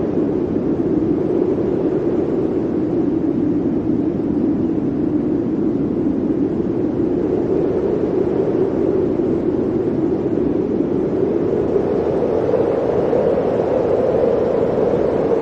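Blizzard wind blowing steadily, a continuous rushing howl whose pitch sinks a little and rises again toward the end.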